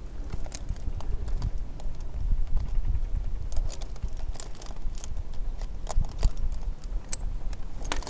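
Scattered light clicks and metallic clinks of climbing hardware (carabiners, pulleys and rope gear on a harness) as the gear and a battery chainsaw are handled, over a steady low rumble.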